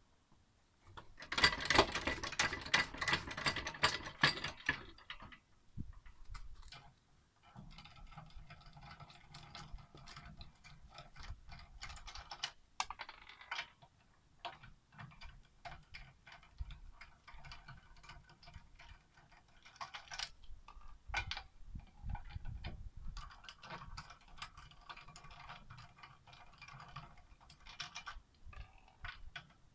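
Rapid light metallic clicking and rattling from working a hydraulic floor jack by its handle. A loud, dense run of clicks comes in the first few seconds, then sparser ticking follows.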